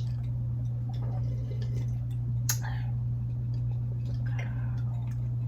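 Soft eating sounds, faint wet mouth noises and small clicks, over a steady low hum.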